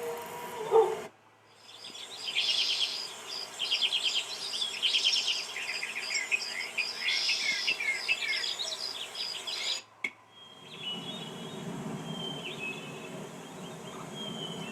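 A recorded birdsong sound effect: a dense run of bird chirps and trills that stops abruptly about ten seconds in. A dog's howl fades out in the first second. After the birdsong comes a different, lower noisy sound effect with faint high tones.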